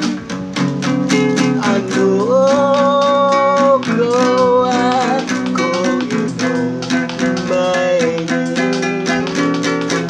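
Classical guitar with a capo strummed in a steady rhythm, with a man singing over it, holding long notes a couple of seconds in.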